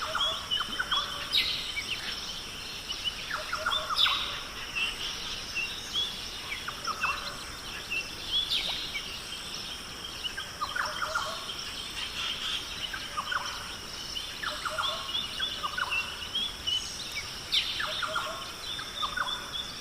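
Rainforest birds calling and chirping, many short calls and trills overlapping throughout. Underneath runs a steady high-pitched drone.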